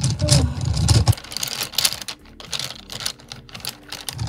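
Wooden coloured pencils clicking and clattering against one another as a hand sorts through a pile and picks some out, with a low rumble of handling during the first second or so.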